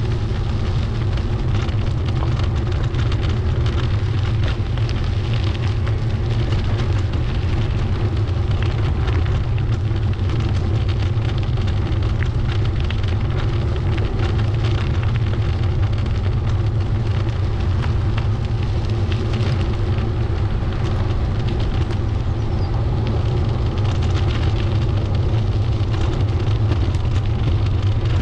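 Wind rumbling on the microphone of a moving bicycle, with tyre noise from the path: a steady deep rumble with scattered small crackles.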